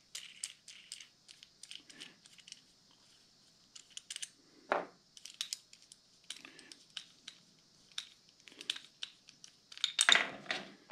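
Light clicks, taps and scrapes of a plastic bracket and its nut-and-bolt hardware being handled against a metal pedal slide rail as wing nuts are undone. There is a sharper knock about five seconds in and a burst of louder rattling near the end.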